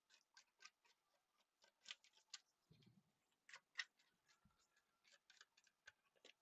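Faint, irregular crisp clicks and snaps of tarot cards being handled and laid down, with one soft low thud about three seconds in.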